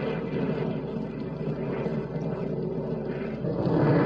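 Jet aircraft sound effect: a steady engine rush in flight, growing louder near the end.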